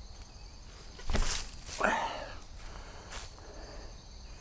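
A disc golf tee shot: a sharp thump about a second in, then a short breathy sound as the disc is thrown, over quiet outdoor background.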